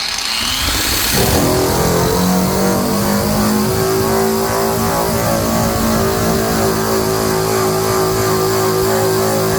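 Bauer 9-amp surface conditioning tool winding up with a rising whine, then running steadily at full speed as its 80-grit abrasive wheel strips paint off the truck's sheet metal with a loud, hissy grind.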